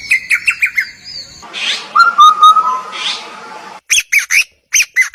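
A bird chirping and whistling in quick runs of short notes, with two rising swooping calls, then a few sharp separate chirps near the end.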